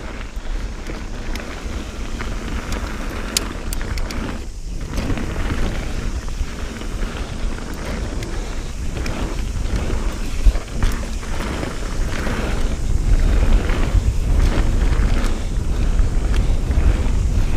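Mountain bike riding down a dirt and gravel trail: wind buffeting the camera microphone with a low rumble, over the tyres on loose ground and the clicks and rattles of the bike on bumps. It grows louder over the last few seconds as the bike picks up speed.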